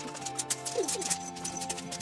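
Background music with held notes over a quick, regular clopping percussion beat.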